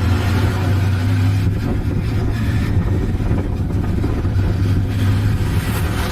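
Motorcycle on the move at steady road speed: an unbroken low engine drone under wind and road noise.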